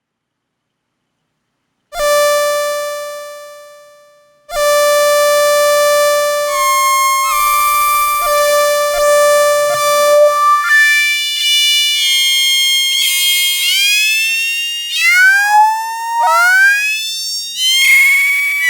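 Nord Rack 2 synthesizer imitating a cat's meow. First comes a single note that fades away, then a held note that shifts pitch a couple of times, then about two-thirds of the way in a string of short meow-like swoops, each rising and then falling in pitch.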